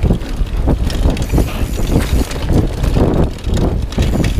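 Mountain bike rolling fast down a rough dirt trail: tyres rumbling over the ground, with the chain and frame rattling and knocking over bumps and wind buffeting the microphone.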